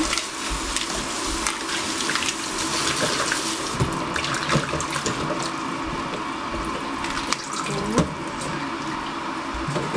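Kitchen tap running into a stainless steel sink and bowl as bok choy is rinsed under it, water splashing over the leaves and hands. Scattered small splashes from handling, and a sharp knock about eight seconds in.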